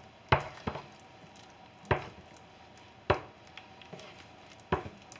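Wooden spoon stirring thick mashed potatoes in a nonstick saucepan, knocking against the pan about five times, roughly a second apart, with soft squishing of the mash in between.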